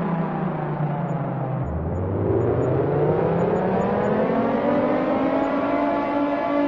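Air raid siren wailing: its pitch falls, bottoms out about two seconds in, then rises again and levels off near the end.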